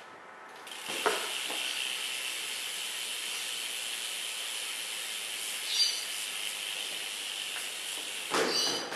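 Rear hub of a BMX bike (a Cult Match hub) freewheeling as the back wheel is spun, giving a steady high, rapid ratchet buzz from the pawls. It starts with a click about a second in and stops near the end.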